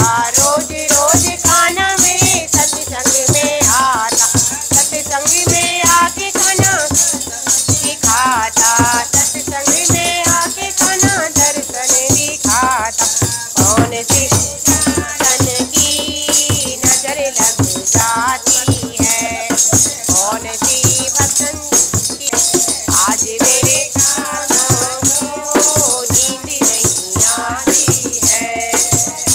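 Group of women singing a Hindu devotional kirtan in chorus. Fast, steady handclaps and jingling wooden kartal clappers keep the beat.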